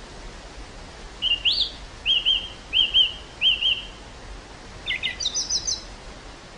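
A small songbird singing one phrase: four repeated, slurred double notes, then a quick run of higher notes near the end. A steady hiss of wind over the field runs underneath.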